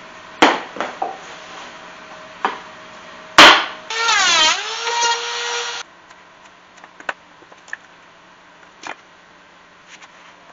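Hand woodworking on pine boards: a few sharp knocks, the loudest about three and a half seconds in. Then a power tool's motor whines for about two seconds, its pitch sliding down and settling. After that come scattered light taps and clicks as the pieces are handled.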